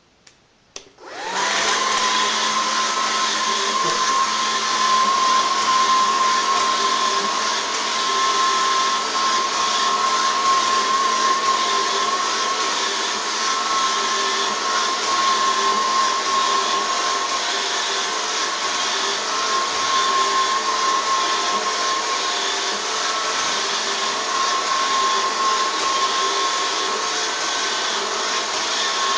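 Robot vacuum cleaner starting up about a second in after a couple of clicks, then its suction fan and brushes running steadily with a high whine.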